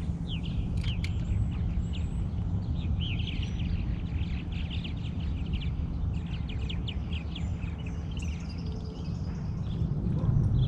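Songbirds chirping, with a quick run of short high chirps about three to seven seconds in, over a steady low rumble.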